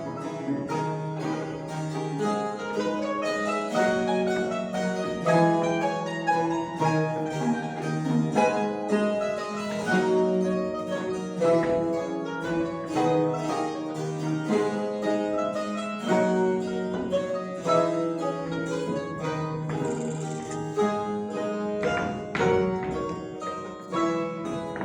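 Mandolin ensemble playing an instrumental piece: many quick plucked notes over a steady bass line.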